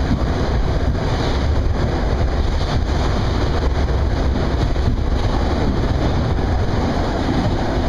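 New York City subway car running along the track, heard from inside the car: a loud, steady, deep rumble.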